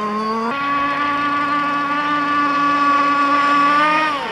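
Radio-controlled powerboat's engine running at high revs, a steady pitched tone that steps up slightly about half a second in and drops sharply near the end as the throttle eases.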